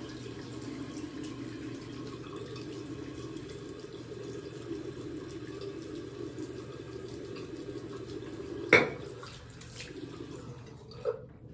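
Tap running steadily into a bathroom sink, easing off near the end. One sharp knock about three-quarters of the way through, the loudest sound, and a smaller one just before the end.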